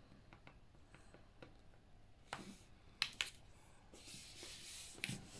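Faint handling of glued paper and cardstock pressed down by hand: a few light taps and clicks around the middle, then a soft rub of paper about four seconds in.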